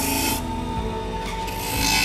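Electric coconut grater shredding the meat of a halved coconut pressed against its spinning serrated head: a loud rasping scrape that breaks off just under half a second in and starts again about one and a half seconds in.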